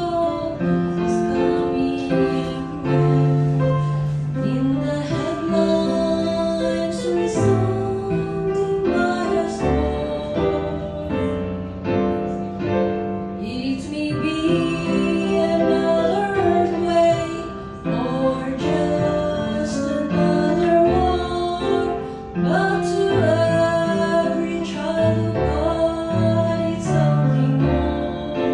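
A woman singing a gospel song with keyboard accompaniment.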